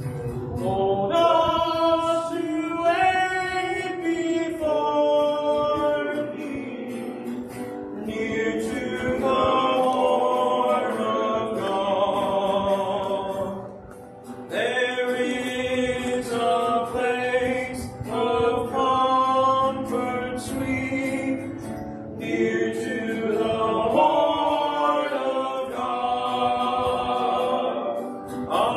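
Gospel hymn sung by voices with a plucked stringed instrument playing along, with a short break between lines about 14 seconds in.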